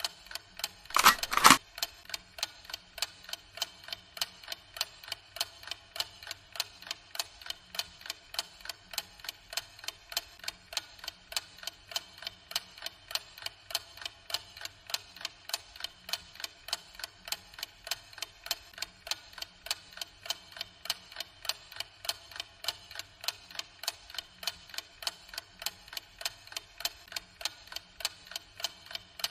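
Clock ticking steadily, about two ticks a second. About a second in there is a short, loud burst of noise, the loudest sound.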